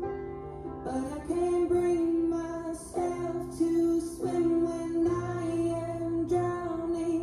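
A song with a sung melody over instrumental accompaniment, played from a vinyl record on a Sony PS-LX310BT turntable; the notes are held and change about once a second.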